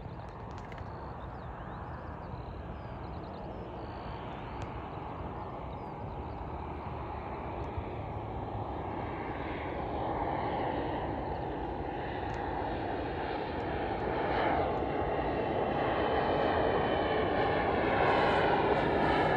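Pilatus PC-12 NG's single Pratt & Whitney PT6A-67P turboprop engine and propeller on landing approach, a steady rushing engine sound growing steadily louder as the aircraft comes nearer.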